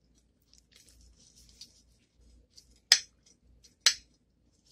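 Kitchen knife cutting through a crumb-coated fried bread roll on a ceramic plate: faint scratchy crunching of the crust, then two sharp clinks of the blade striking the plate about a second apart.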